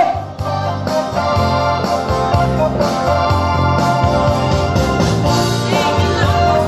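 Instrumental passage of a pop-rock song: sustained organ-like keyboard chords over a steady bass line, with no singing.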